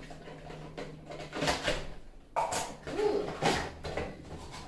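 Cardboard box and plastic packaging rustling and scraping in several short bursts as a boxed plastic soap pump dispenser is unpacked by hand.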